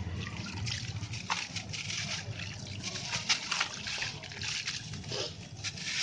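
Lumps of sand-cement concrete crumbling, a dense run of irregular crunching crackles with a few sharper snaps.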